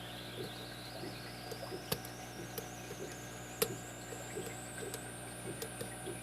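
Lock pick working the pin stack of a brass padlock: soft, regular ticks about two or three a second, with two sharper clicks about two and three and a half seconds in. Under it runs a steady low hum and a faint whine that rises slowly in pitch.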